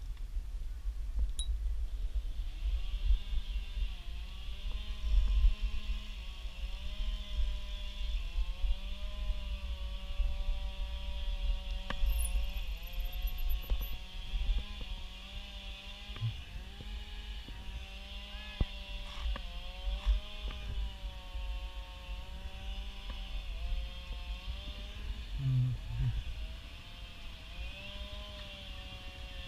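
A small engine running, its pitch wavering up and down, starting a couple of seconds in and continuing to the end. Beneath it is a steady low rumble of wind on the microphone from riding, and above it a steady high buzz.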